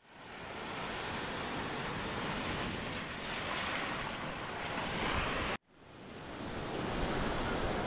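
Small sea waves washing up onto a sandy shore, a steady rushing wash with some wind on the microphone. The sound cuts out abruptly about five and a half seconds in and fades back in.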